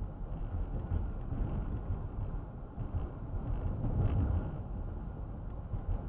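Car road noise heard from inside the cabin while driving at about 40 mph: a steady low rumble of tyres and engine, swelling slightly about four seconds in.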